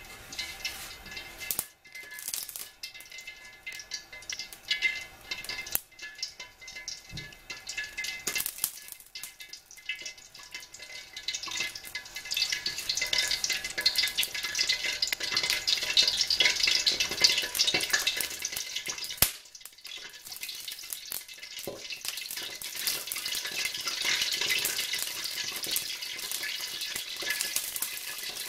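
A little oil and water heating in a wok over a high flame, crackling and sizzling. The spitting builds into a dense crackle about twelve seconds in.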